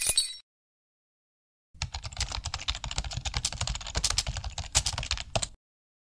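Rapid, irregular clicking of computer keyboard typing, starting about two seconds in and stopping shortly before the end. A loud noise from the previous scene cuts off right at the start.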